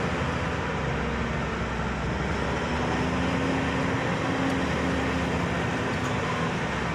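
Engine and road noise of a delivery vehicle driving slowly along a town street, heard from inside the cab: a steady engine hum under an even rumble of tyres.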